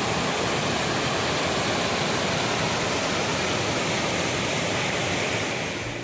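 Water pouring down a waterfall: a steady, even rushing hiss.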